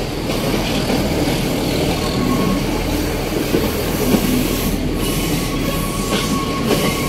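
Passenger train running along the track: a steady rumble of wheels on rails with scattered clicks over the rail joints and a faint thin wheel squeal now and then.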